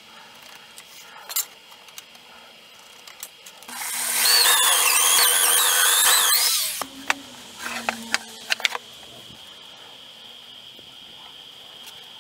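Electric drill boring into a wooden board for about three seconds, its motor whine wavering as it works under load, followed by a few sharp clicks and knocks.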